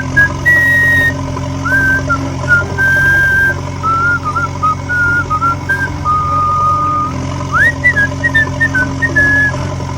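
A whistled tune that wanders up and down with short breaks, over a steady low hum.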